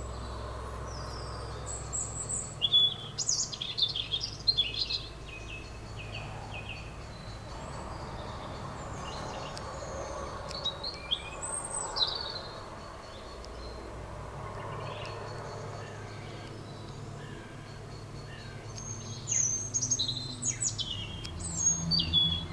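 Songbirds singing in short bursts of high chirps and trills: a busy cluster a few seconds in, another around the middle and another near the end, over a steady low background rumble.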